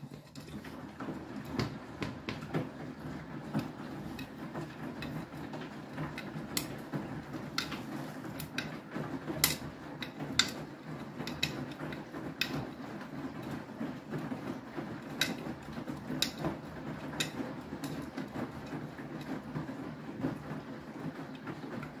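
Beko WTK104121W washing machine mid-wash in its Powerstream action: the drum turns fast with wet laundry, giving a steady low running hum with sharp clicks about once a second.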